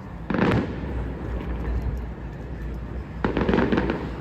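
Display fireworks going off: a bang about a third of a second in, then a crackling burst of many rapid pops near the end, over a steady low rumble.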